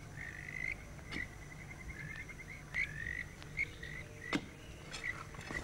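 Frogs calling in a night chorus: short repeated chirping trills at one high pitch, over a low steady hum. A few sharp knocks cut through, the loudest about four seconds in.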